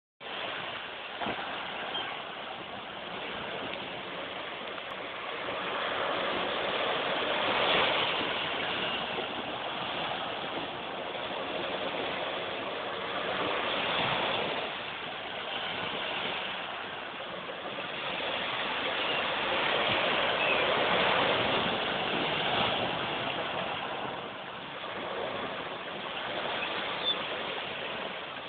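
Small waves breaking on the shore: a steady hiss of surf that swells and eases every several seconds.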